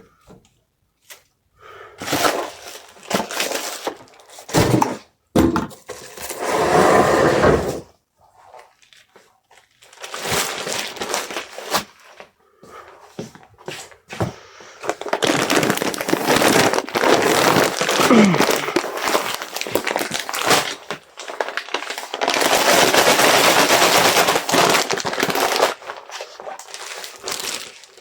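Order-packing sounds: irregular bursts of rustling and crackling packing material, with knocks and thuds from items being handled. There are two long stretches of dense crackling, one in the middle and one near the end.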